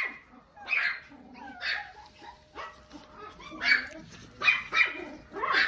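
Small dog, a black-and-tan Pomeranian, barking in short, sharp yaps, about eight of them, roughly one a second.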